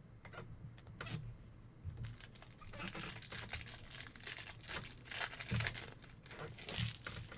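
A trading-card pack's foil wrapper being torn open and crinkled in the hands, in a run of irregular crackling.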